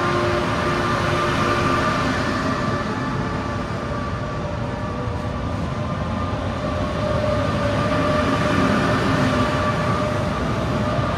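Italo high-speed electric train moving at the station, its traction equipment whining in several steady tones over a rumble of running noise; one tone edges slightly higher in the second half.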